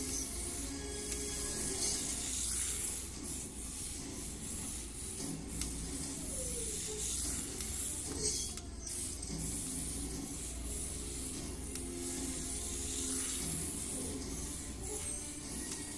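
Tiny electric motor and gears of a 1:43 scale radio-controlled car whirring as it drives, a steady high hiss with a few short clicks and brief dips in pitch.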